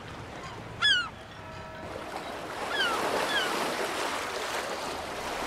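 Seagulls calling, short cries that fall in pitch: a loud one about a second in and two fainter ones near the middle. Behind them is the wash of sea waves, which swells in the middle.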